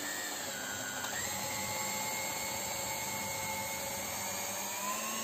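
Electric hand mixer running, its twin beaters whipping thick caramel sauce in a glass bowl: a steady motor whine that shifts in pitch about a second in.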